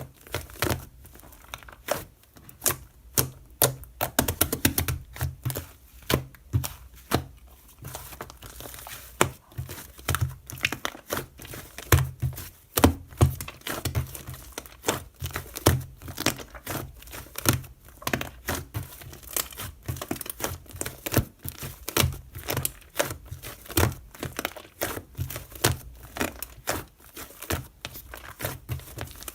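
Irregular crinkling and sharp clicks, several a second, from something being handled by hand.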